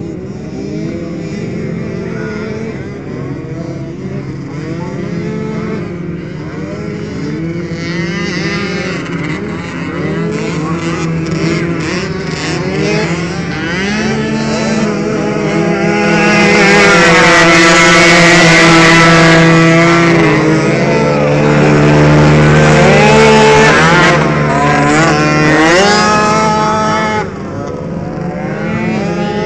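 Several motocross bikes racing on the dirt track, their engines revving up and down over one another. The pack grows loud about halfway through, stays close for roughly ten seconds, then fades suddenly near the end.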